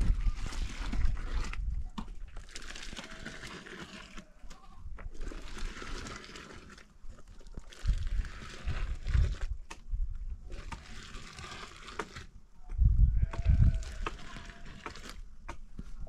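Livestock bleating again and again, calls of a second or two with short gaps between them, with a few low thumps.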